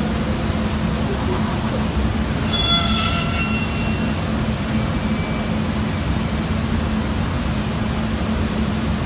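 Northwood TA125MT CNC router running as it machines a wooden workpiece: a steady mechanical hum over a rush of noise. About two and a half seconds in comes a brief high-pitched squeal lasting about a second.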